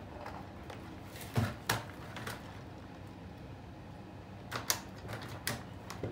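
Plastic lure box being handled: scattered sharp clicks and knocks from its latches and lid as it is opened and shut, with two louder ones about a second and a half in and a cluster near the end.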